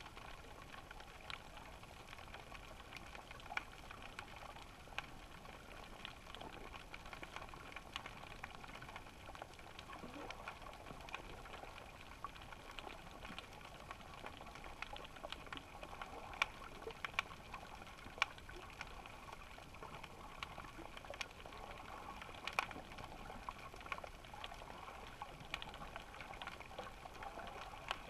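Underwater ambience heard through a GoPro's waterproof housing at about 13 m depth: a steady, muffled hiss with scattered sharp clicks and crackles at irregular intervals.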